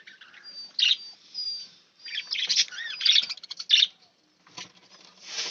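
Small caged birds, budgerigars and finches, chirping and chattering in quick, irregular high calls, with a short lull about four seconds in.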